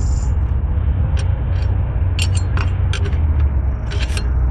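Scattered light clicks and taps of a metal catch can bracket and plastic fittings being handled and repositioned in an engine bay, over a steady low rumble.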